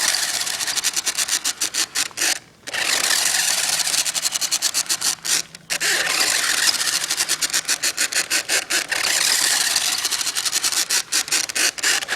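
New Bright Velocity Extreme RC car's small electric motor and plastic gears whirring with a rapid chattering as it strains uphill, cutting out briefly twice. The owner takes the strained sound for a tiny motor that is not happy, the car being slightly broken.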